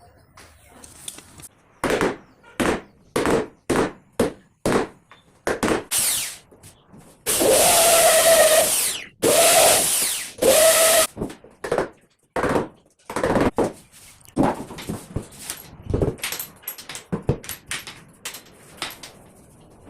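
A power drill running in three bursts of a second or two, its motor whining steadily, boring into plywood for a cabinet lock. Before it come about eight sharp knocks, and after it scattered lighter clicks and taps of tools on wood.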